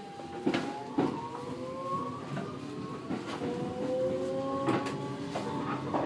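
R160 subway car's traction motors whining and rising in pitch as the train accelerates, in two stepped climbs. Several sharp knocks from the car and wheels run over it.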